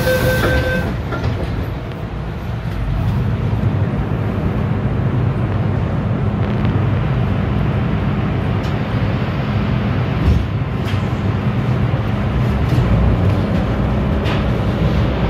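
MTR M-train heard from inside the carriage: a steady two-pitch door warning tone stops about a second in. The train then moves off with a steady low rumble of traction motors and wheels on the track.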